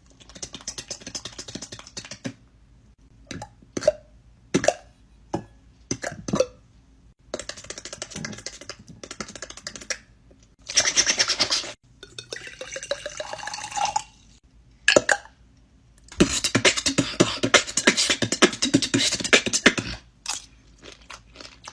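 Vocal sound effects made with the mouth: a string of sharp clicks and pops between hissing, crackling bursts, the longest near the end, with a short rising pitched sound in the middle. They mimic preparing and eating a bowl of "nature cereal".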